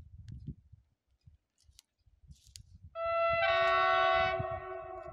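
Horn of an SA133 diesel railbus sounding about three seconds in: a two-note chord, the higher note first and a lower one joining a moment later, loud for about a second and a half and then held more softly. Low wind rumble on the microphone runs under it.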